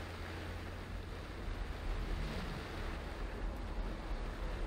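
Car driving on a rain-soaked road, heard from inside: a steady hiss of tyres on the wet surface over a low rumble of the car's running.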